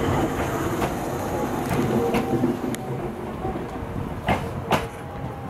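Meitetsu 6000 series electric train running past at close range, its wheels clattering over the rail joints, the noise dying down after about three seconds. Two sharp clicks stand out near the end.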